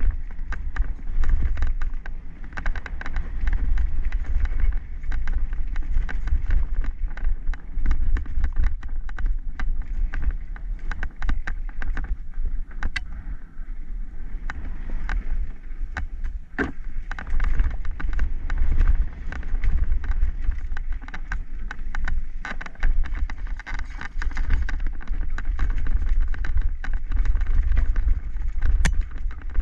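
Mountain bike descending a rough downhill trail at speed: wind buffeting the microphone as a constant low rumble, with the bike rattling and knocking sharply over roots, rocks and bumps.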